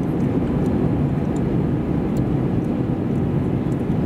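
Steady in-flight cabin noise inside an Airbus A321neo (A321-271NX) with Pratt & Whitney PW1100G geared turbofans: an even, unbroken rush of airflow and engine noise, heaviest in the low range, with a few faint ticks.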